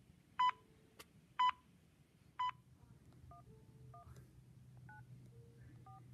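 Three short high time pips, one a second, from the 1194 talking clock heard over a phone's speaker: the third stroke marks the announced time. Then four faint touch-tone keypad beeps as the number 1194 is dialed on the phone.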